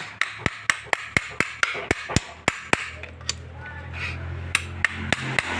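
Quick, even hammer blows, about four a second, knocking on a washing-machine motor to take it apart. A low steady hum comes in about three seconds in.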